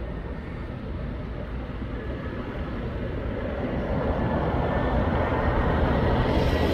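AirAsia twin-engine jet airliner on final approach with gear down, its engine rumble growing steadily louder as it comes closer. A faint high whine joins in about two seconds in.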